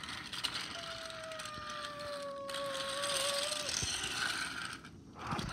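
Toy R160 subway train running along plastic track: a steady whine that slowly falls and wavers in pitch over a rattling hiss, with the whine stopping about two-thirds of the way in.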